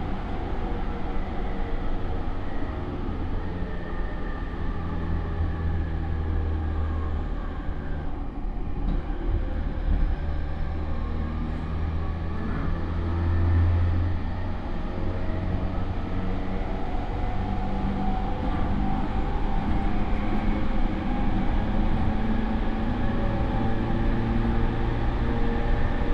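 Running sound of a JR E231 series electric train heard from inside its motor car: wheels rumbling on the rails under the drone of the Mitsubishi IGBT inverter and traction motors, whose tones slowly shift in pitch and rise toward the end.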